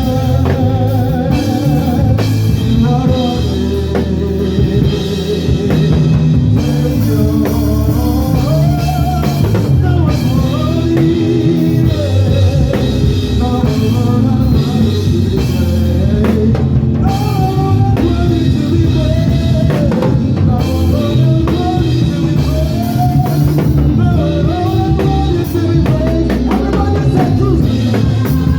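Gospel praise-and-worship band music: drum kit and a heavy bass line under a wavering melodic lead.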